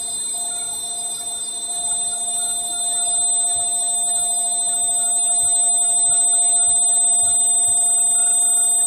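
Indesit washing machine running: a steady hum with several constant whining tones over a light rushing noise, growing somewhat louder about two seconds in.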